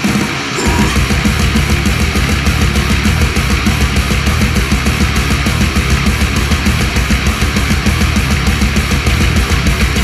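Death metal recording: heavily distorted guitars over fast, evenly driving drums, with the heavy low end coming in about half a second in.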